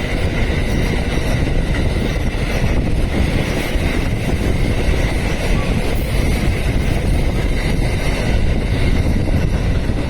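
Electric train running along the track through the station, a steady loud rumble, with wind buffeting the microphone.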